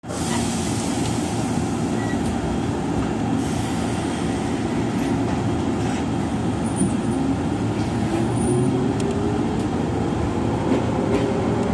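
Izu-Hakone Railway 3000 series electric train running, heard from inside the front car: steady rumbling running noise, with a whine rising in pitch over the last few seconds as the train gathers speed.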